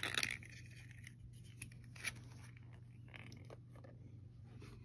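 Light plastic clicks and scrapes as clear plastic caps are pressed down over the seed pods of an AeroGarden hydroponic unit, with a brief rustle at the start and a sharper click about two seconds in. A faint steady low hum runs underneath.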